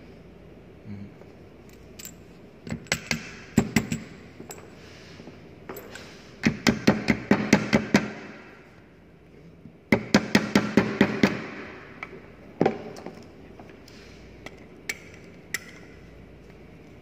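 Plastic-faced mallet tapping a steel feather key into the keyway of a centrifugal pump shaft: three runs of quick taps, several a second, then a single knock.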